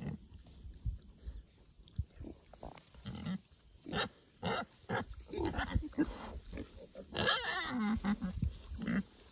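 Pigs grunting again and again in short bursts, with one loud high squeal about a second long near the end.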